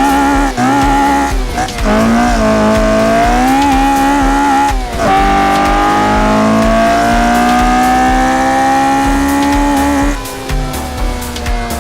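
Car engine held at high revs, its pitch wavering and then climbing slowly before dropping off about ten seconds in, with tyres squealing under wheelspin.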